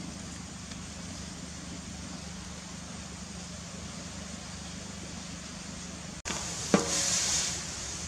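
Wood fire burning steadily under a large iron wok, a low even background. About six seconds in the sound cuts to a louder hiss of water boiling in the wok, with one sharp knock that rings briefly.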